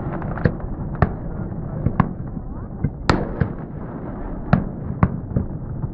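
Fireworks display: aerial shells bursting in a run of sharp bangs at uneven intervals, the loudest about three seconds in, over a steady low rumble.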